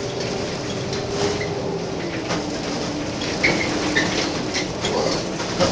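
Gillig Phantom transit bus on the move, heard from inside at the driver's seat: the engine and drivetrain run with a whine that drops in pitch about two seconds in, over rattling and clicking from the bus body and fittings.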